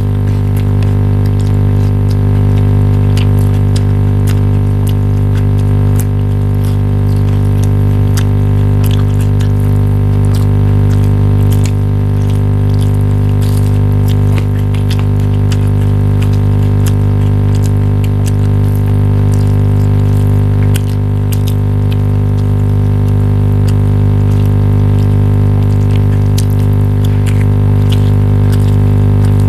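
A loud, steady low drone made of many held tones, unchanging throughout, with faint scattered clicks on top.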